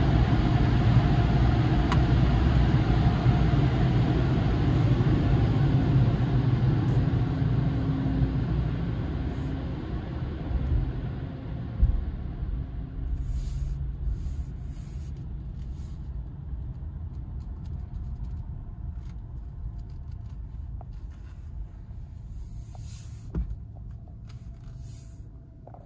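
AeroTherm tunnel car-wash dryers blowing, heard from inside the car as it rolls out of the tunnel. The noise fades over about twelve seconds, with a thump near the middle. After that the car's low rumble carries on as it drives slowly across the lot.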